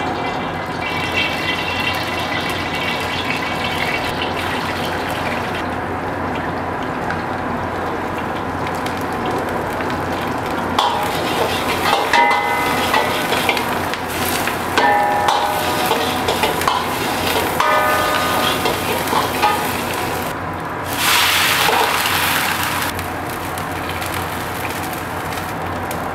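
Food frying in hot oil in an iron wok, stirred with a metal ladle that scrapes and clanks against the pan in clusters of short ringing strikes. A loud burst of sizzling comes about 21 seconds in, over a steady background rush.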